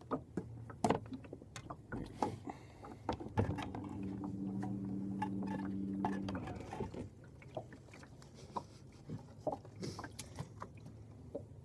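Scattered knocks and clicks from handling gear and a fish in a small fishing boat, with a steady low hum lasting about three seconds in the middle.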